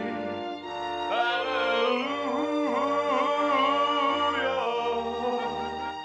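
A slow song with band accompaniment: a man sings long, wavering held notes over a steady pulsing bass line.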